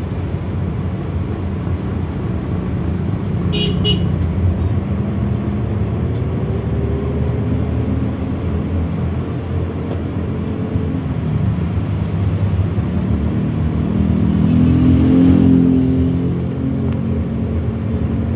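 Manual car's engine running as it drives in traffic, heard from inside the cabin, with a brief sharp sound about four seconds in and a swell in loudness about fifteen seconds in.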